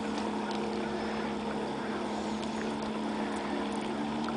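Boat motor running steadily with an even hum, over faint water and wind noise.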